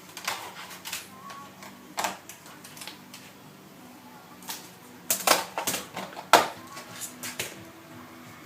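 Irregular sharp plastic clicks and taps of a laptop keyboard being pried off its retaining prongs and lifted from the chassis, busiest about five to seven seconds in, over a faint steady hum.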